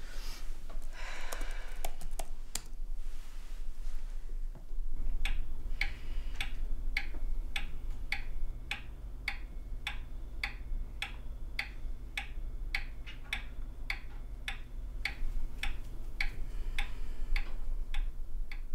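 Regulator pendulum wall clock ticking evenly, about one and a half ticks a second, starting about five seconds in, over a low steady hum.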